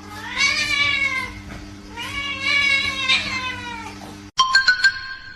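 A cat gives two long, drawn-out meows about a second apart, each rising then falling in pitch. Near the end the sound cuts abruptly to a few sharp clicks and steady tones.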